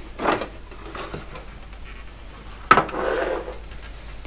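Plastic back cover of an old portable TV being worked loose and pulled off: a few light knocks and clatters, then a sharp knock near three seconds in followed by a brief scrape as the cover comes away and is set down.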